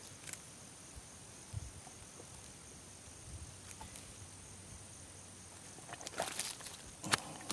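Faint steady high-pitched insect drone with a few soft scattered knocks, then a short burst of rustling and clicking about six seconds in, ending in one sharp click.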